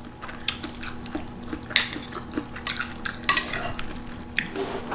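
Cutlery clinking and scraping against a dish of pasta, a run of small irregular clicks as the noodles are stirred and picked up.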